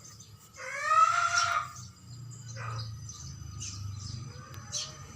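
Bird calls: one loud call with a rising start about a second in, then several short, high chirps.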